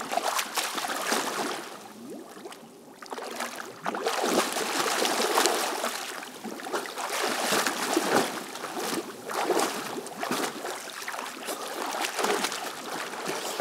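Pool water splashing and sloshing as two swimmers grapple and one breaks free of a hold from behind and swims away, in uneven surges with a quieter moment about two seconds in.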